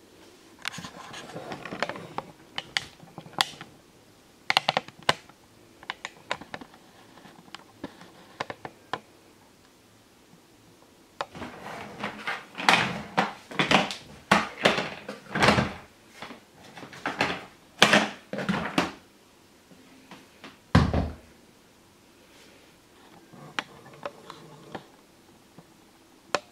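Plastic parts of a shop vacuum being handled: a string of short clunks, clicks and scrapes, densest in the middle, with one deeper thump later on.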